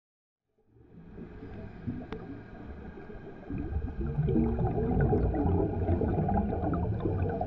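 Underwater ambience of bubbling and gurgling over a low rumble. It fades in, then grows louder about three and a half seconds in.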